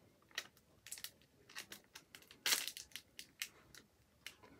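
A crinkly plastic snack packet being handled and squeezed in the hands: irregular crackles and rustles, with a louder crinkle about two and a half seconds in.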